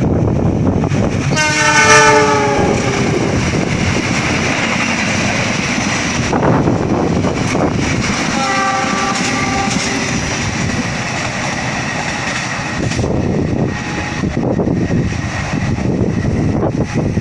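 Diesel-hauled passenger train running through the station, with the continuous rumble and clatter of the coaches on the rails. The locomotive's multi-note horn sounds about a second and a half in, falling in pitch as it goes by, and again, shorter, about eight and a half seconds in.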